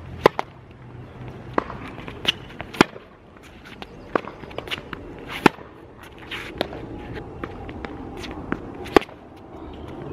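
Tennis rally on a hard court: a Tecnifibre TFight ISO 300 racquet strikes the ball with four loud, sharp pops a few seconds apart. Fainter ball bounces, far-side hits and footsteps fall in between.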